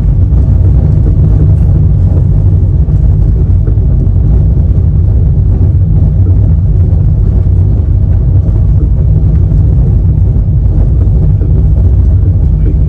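Steady low rumble of a moving passenger express train, heard from on board.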